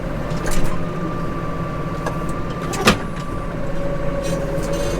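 Case Maxxum 150 tractor engine running steadily under ploughing load, a constant hum with a steady pitch. Two sharp clicks or knocks cut across it, the louder one about three seconds in.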